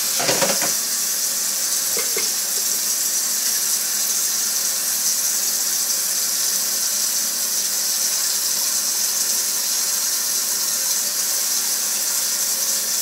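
Kitchen faucet running steadily, a constant rush of water, with a couple of light knocks near the start.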